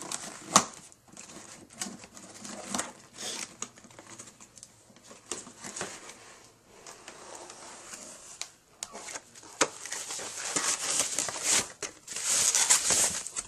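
A new laptop's cardboard box and plastic packaging being opened and handled by hand: irregular rustling with scattered clicks and knocks, loudest near the end.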